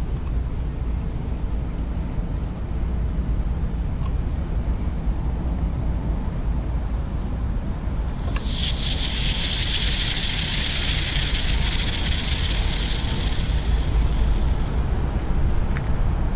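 Wind rumbling on the microphone throughout. About halfway in, lithium metal on water starts fizzing, a hiss that lasts several seconds as it gives off hydrogen gas, then fades.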